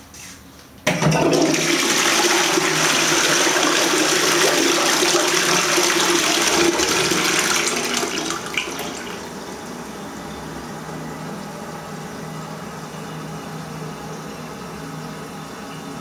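Toilet flushing: water rushes into a ceramic bowl, starting suddenly about a second in and running loudly for about seven seconds, then falling to a quieter steady running of water.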